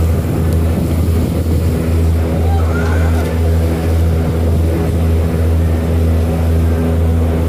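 Diesel engine of a passenger riverboat running steadily: a loud, even, low drone with a slight regular pulse.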